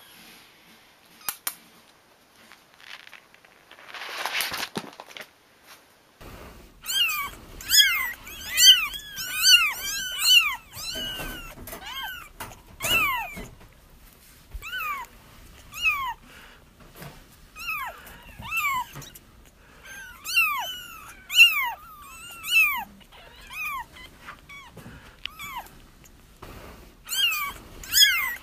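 Several young kittens crying: rapid, overlapping high mews, each rising then falling in pitch, starting about six seconds in and going on steadily. Before them come a couple of sharp clicks and a brief rustle.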